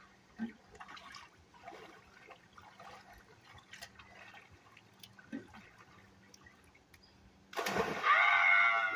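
Light splashing of swimmers in an outdoor pool, then about seven and a half seconds in a loud splash as a boy jumps in, followed at once by a loud, high-pitched shout.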